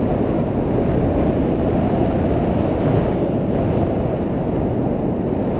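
Wind buffeting an action camera's microphone during a tandem paraglider flight: a steady, low rush of noise with no distinct events.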